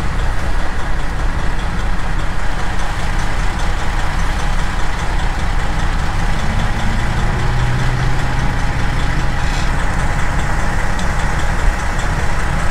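Freightliner Classic semi truck's diesel engine idling, heard from inside the cab as a steady low rumble. A deeper hum swells and fades about halfway through.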